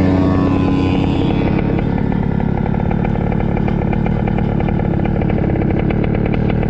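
Two-stroke KA100 kart engine coming off the revs over the first second or so, then running steadily at low revs with a fast, even pulsing.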